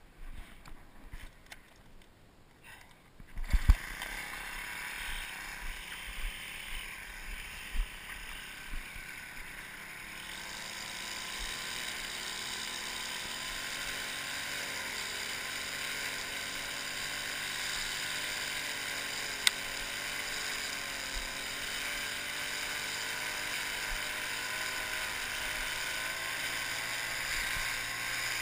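Gas string trimmer's small engine starting up about three and a half seconds in with a loud thump, then running steadily while the line cuts grass along a concrete curb edge, getting a little louder partway through.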